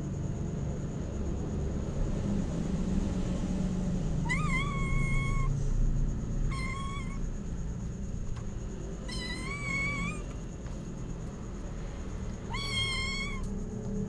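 A cat meowing four times, short high calls a few seconds apart, over a steady low rumble.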